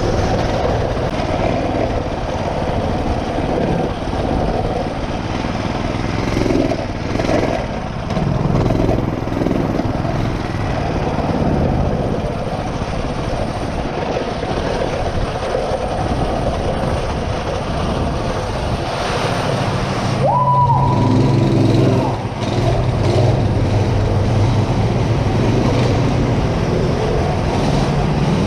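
Mini bike's small single-cylinder engine running steadily under way, getting louder about two-thirds of the way through. A brief high tone rises and falls just before that.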